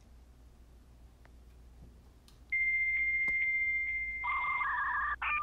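Electronic beeping sound effect standing in for the character's 'future language'. After a couple of seconds of faint room tone, a steady high beep tone starts about halfway in, then switches near the end to two alternating warbling tones.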